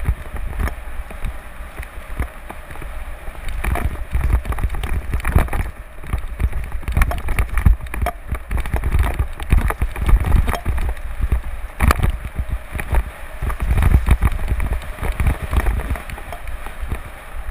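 Wind buffeting the microphone of a handlebar-mounted camera, with the rattle of a mountain bike riding fast down a rough dirt and gravel trail and many sharp knocks as it bounces over stones and bumps.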